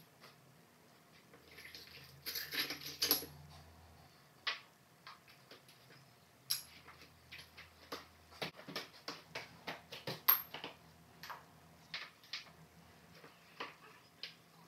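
Ceramic tiles being handled and set: a short spell of clattering about two to three seconds in, then scattered sharp clicks and taps as pieces are picked up and placed.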